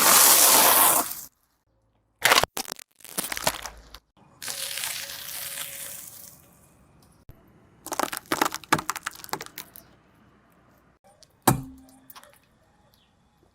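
Objects cracking and crunching as they are crushed under a car tyre, heard in several short clips joined by abrupt cuts. There are clusters of crackles and a single sharp crack near the end.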